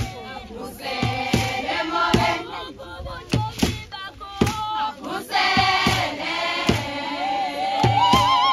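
Choral group singing, several voices together, with sharp percussive strikes through it; a wavering high note comes in near the end.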